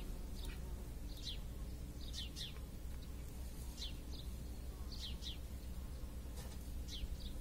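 Small birds chirping: short, high, downward-sliding chirps, often in pairs, every second or so, over a steady low hum.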